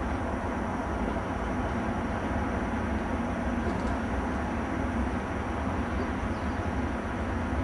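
Class 66 diesel-electric locomotive's two-stroke V12 engine running as it hauls a train of loaded timber wagons, with a steady low rumble.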